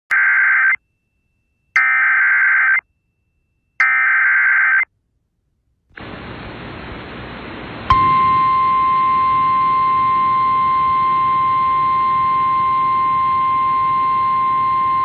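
Emergency Alert System SAME header: three one-second bursts of warbling data tones with short gaps. Radio hiss follows, and about eight seconds in a loud, steady NOAA Weather Radio 1050 Hz warning alarm tone begins and holds over the hiss.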